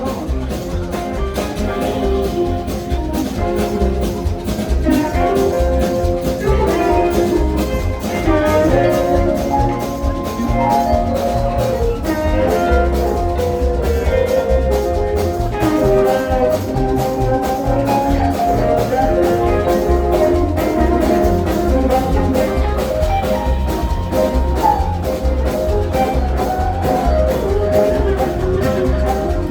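Live blues band playing an instrumental passage: a melodic lead line moving over drums and a steady low beat.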